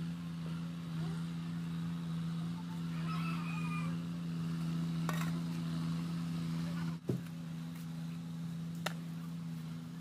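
A steady low hum throughout, with a rooster crowing once about three seconds in and a few sharp knocks later on.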